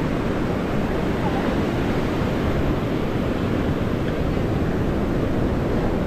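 Steady noise of sea surf washing up a sandy beach, mixed with wind rumbling on the microphone.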